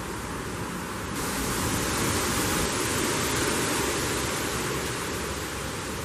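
Wind gusting through trees with dry autumn leaves rustling, a steady hiss that swells about a second in and holds strong, easing a little near the end.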